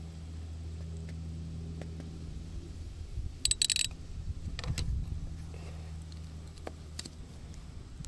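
Kubota B2401 tractor's three-cylinder diesel engine idling steadily, with a short metallic rattle about three and a half seconds in and a few light knocks after it as the backhoe valve spool is handled.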